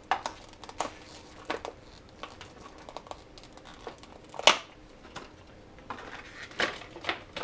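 Small parts package crinkling and rustling as it is worked open by hand, in a run of scattered crackles with one sharper snap about four and a half seconds in.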